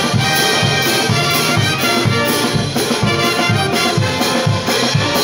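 Brass band playing carnival music, with trumpets over a steady bass-drum beat of about two strokes a second.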